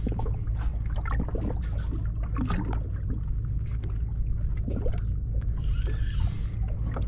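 Steady low rumble aboard a small fishing boat, with scattered knocks and clicks.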